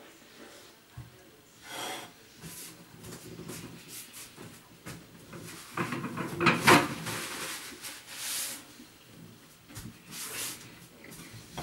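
Household things being handled and moved about: a run of rustles, scrapes and light knocks, loudest a little past halfway.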